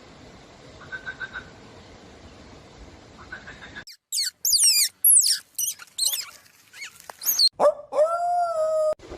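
A dog whimpering and yipping in high, quickly falling whines from about four seconds in. It ends with one longer, steadier howl-like call near the end. Before that, faint short bursts of croaking.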